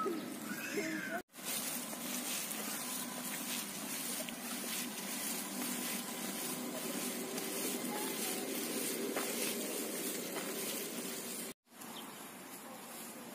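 Outdoor background sound with a few short chirping bird calls in the first second, then a steady faint hum and hiss. The sound drops out suddenly twice, briefly, at splices in the recording.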